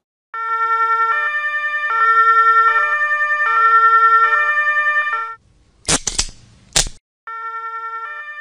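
Two-tone siren sound effect, switching between a higher and a lower note about every three-quarters of a second. It stops about five seconds in, two sharp cracks follow, and the siren starts again near the end.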